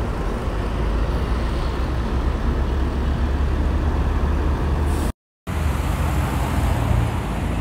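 Road traffic: coach buses and cars passing, a steady low engine rumble with tyre noise. The sound drops out completely for a moment about five seconds in.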